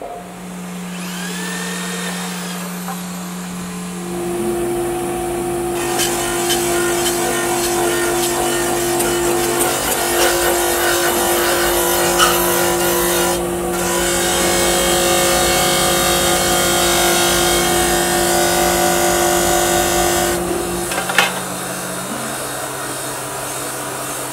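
Power tools working a stainless-steel plate: an electric hand drill runs against the plate, then a motor-driven buffing wheel runs steadily. From about six seconds in, a rough grinding hiss joins as the plate is pressed against the wheel, stopping briefly once.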